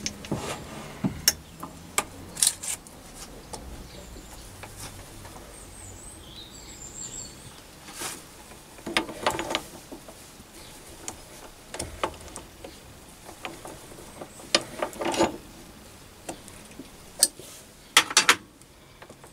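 Metal tooling being handled and fitted at a mini lathe's toolpost: scattered metallic clicks, clinks and knocks, a few of them sharp and loud, while the lathe is not running.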